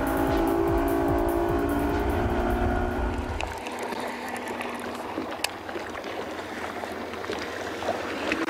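Bass boat's outboard motor running under way, a low rumble with steady tones that dip slightly in pitch, stopping suddenly a little over three seconds in. After that, a quieter even hiss with a few faint clicks.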